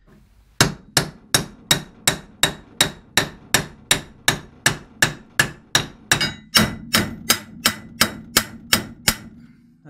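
Hammer blows knocking a steel sway bar arm onto the splined end of a Jeep Cherokee XJ sway bar, about two dozen even strikes at roughly three a second that stop just before the end.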